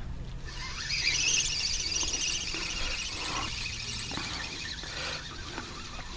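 Spinning reel on a feeder rod being wound in, a high whirring squeal from the reel for about five seconds.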